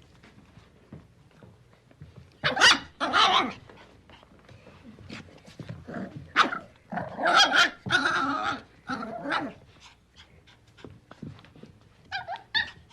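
Puppy yelping in two loud bouts a few seconds apart, with light ticking sounds between them. Two short, high yips come near the end.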